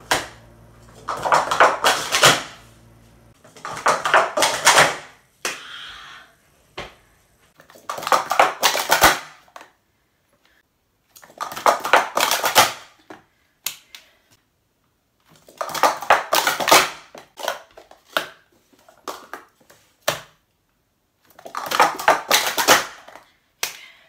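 Plastic Speed Stacks sport-stacking cups clattering in quick flurries of clicks as they are stacked up and down at speed. There are about six runs of roughly one and a half to two seconds each, with quiet pauses between them.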